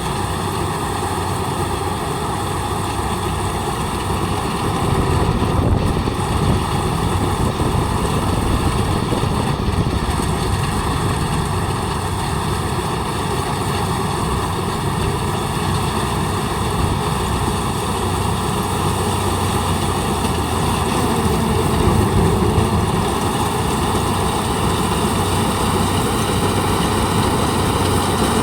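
Kubota combine harvester running steadily, an even engine drone with a constant pitch.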